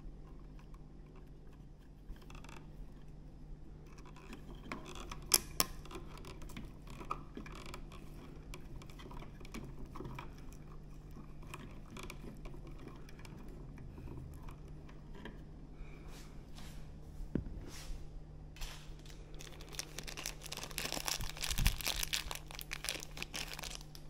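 Plastic twist-on wire connectors being worked loose and wires handled in a switch box: scattered small clicks and scrapes, with a denser stretch of crackling a few seconds before the end.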